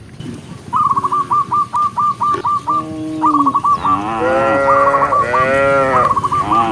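Cattle mooing: several long moos that arch up and down in pitch, overlapping one another. Over them runs a fast string of short, repeated high notes, about four to five a second, which starts about a second in and comes back near the end.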